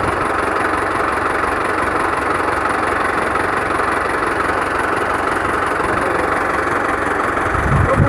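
Mahindra Arjun 555 DI tractor's four-cylinder diesel engine idling steadily.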